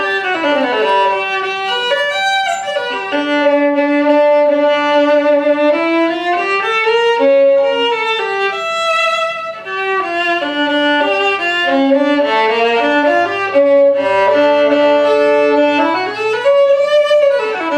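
A modern Italian violin made in 2009, bowed solo in a melodic passage of held and moving notes. Its tone is bright and nasal, which the violin maker judges as too much high frequency: a sound that carries well but is not pleasant on the ear.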